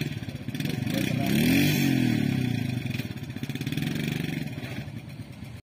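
A vehicle engine passing by, its pitch rising and then falling as it goes, loudest in the middle.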